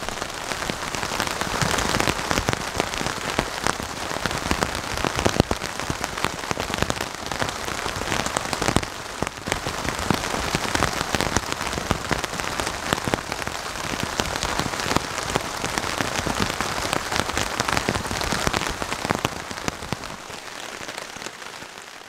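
Heavy rain falling, many separate drop hits standing out as sharp ticks in a steady hiss; it fades out near the end.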